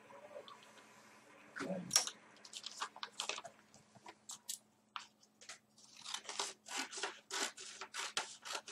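Thin paper being handled and crinkled: a series of short crackles and rustles, with a sharper crackle about two seconds in and a busier stretch of crinkling in the second half as the sheet is lifted.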